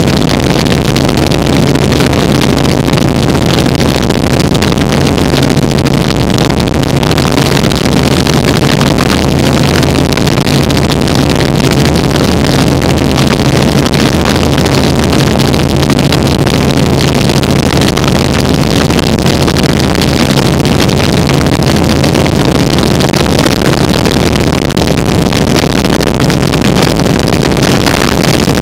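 Helicopter in flight: a steady, loud drone of engine and rotors with a constant low hum beneath it.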